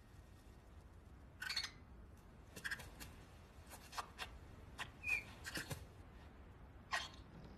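Cartoon egg-hatching foley: a scatter of short, sharp eggshell crackles and taps, with one brief high squeak about five seconds in.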